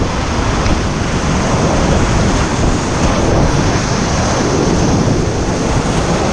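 Rushing whitewater of a river rapid: a loud, steady roar of water.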